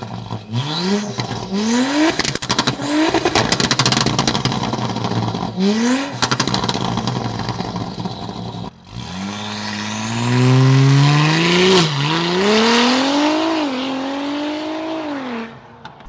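Audi SQ5's turbocharged V6, fitted with a big aftermarket turbo, catless downpipe and Integrated Engineering catback exhaust, pulling hard: the engine note climbs in several short runs and then one long one that drops back at gear changes about twelve and thirteen and a half seconds in, with a high turbo whistle rising alongside it. A fast crackling runs from about two to four seconds in.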